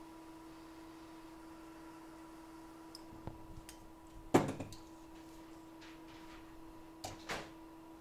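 A few hard knocks and clacks from tools and the logic board being handled on the workbench, the loudest about four and a half seconds in and two more near the end, over a steady electrical hum from the bench equipment.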